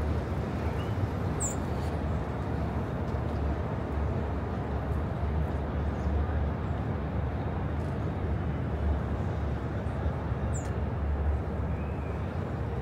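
Steady city street ambience: a low, even rumble of traffic, with two brief high chirps, one about a second and a half in and another near the end.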